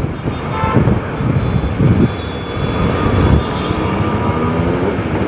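TVS Apache motorcycle engine running under way, with wind buffeting the microphone. About four seconds in, the engine note begins rising steadily as the bike accelerates.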